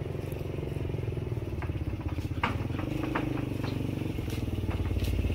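A small engine running steadily at an even, fast pulse, with scattered light clicks and knocks over it.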